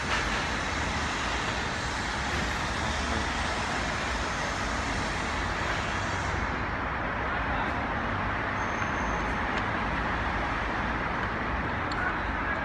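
Steady rushing background noise, with a few faint light clicks near the end.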